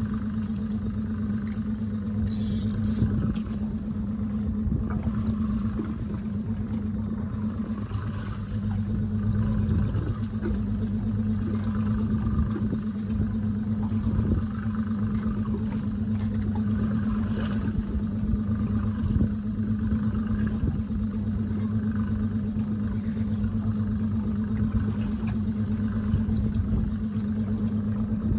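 A boat motor running with a steady low hum, easing slightly for a moment about a third of the way in, with a few faint clicks over it.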